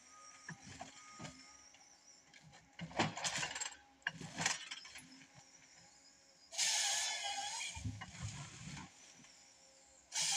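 John Deere 1070G harvester processing a pine log with its head. Scattered cracks and clatter come as the stem is fed and delimbed, then about six and a half seconds in a loud rushing burst lasting about a second, the head's saw bucking through the log.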